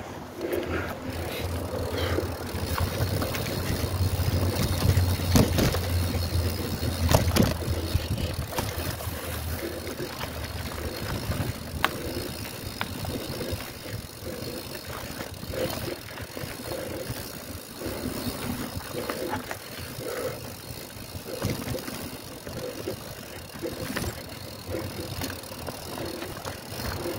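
Mountain bike ridden over a rough cross-country trail: tyres running on dirt, with frequent rattles and sharp knocks from the bike. It is louder, with more rumble, for a few seconds from about three seconds in.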